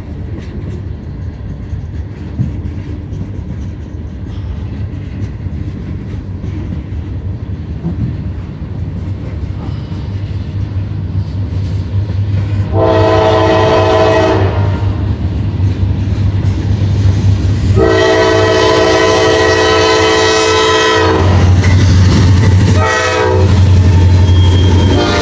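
Steady rumble and wheel clatter of a long freight train of tank cars and hoppers rolling past on the adjacent track, joined about halfway by the air horn of an approaching CSX diesel freight locomotive. The horn sounds a blast of under two seconds, a longer blast, a brief one, and another long one starting near the end, in the long-long-short-long grade-crossing pattern. The rumble grows louder as the locomotive nears.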